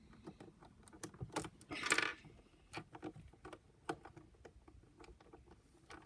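Small plastic clicks and clacks of a puzzle cube's pieces being turned and pried apart, with a louder clatter about two seconds in.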